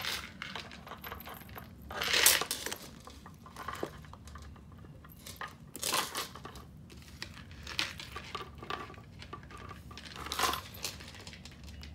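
Silver metal shoulder chain of a Dior pouch clinking and jingling in irregular bursts as it is handled and clipped onto the bag's rings. The loudest jingle comes about two seconds in, with smaller ones later.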